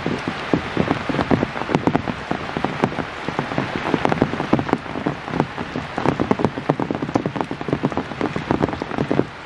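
Steady rain falling on wet ground, vegetation and a concrete path, with many separate drop impacts heard close by.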